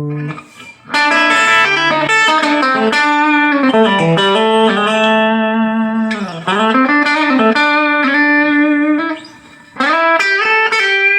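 Electric guitar played through an Artist TweedTone20R guitar amplifier: melodic single-note phrases with pitch bends, pausing briefly twice.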